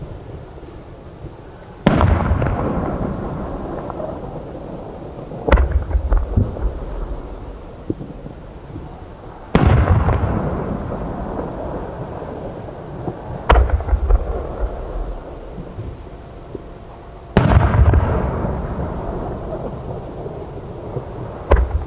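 Aerial firework shells going off one at a time: six sharp booms about four seconds apart, each trailing off in a long echoing rumble.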